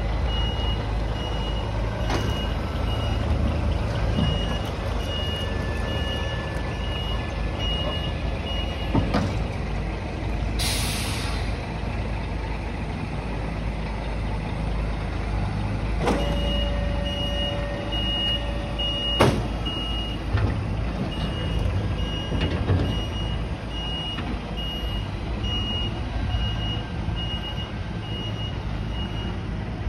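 Scania R420 truck's diesel engine running at low speed while the truck's reversing alarm gives a steady series of high beeps, which stop for several seconds midway and then resume. A short hiss of released air from the air brakes comes about ten seconds in.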